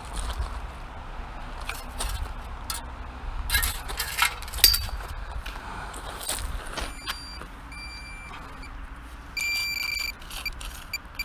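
Digging in wet beach gravel and sand, with scrapes and sharp clinks. From about seven seconds in, a metal detector gives short high beeps, then longer steady tones near the end as it sounds over a buried target, an iron nail.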